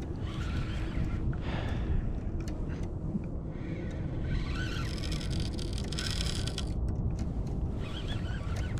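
Wind rumbling on the microphone and water moving along a kayak's hull, with scattered small clicks and a brief louder hiss in the middle.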